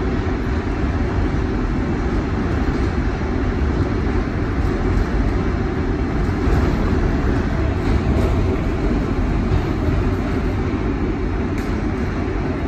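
Inside an R142A subway car running underground: a steady low rumble of the wheels on the rails and of the car in motion.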